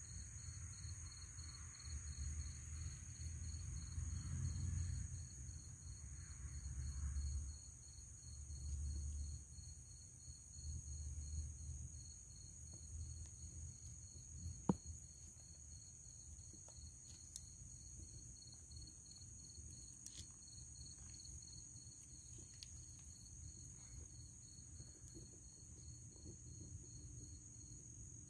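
Night insect chorus of crickets: a steady high-pitched trilling, with one caller pulsing evenly several times a second. A low rumble comes and goes through the first half, and a couple of sharp clicks fall about midway.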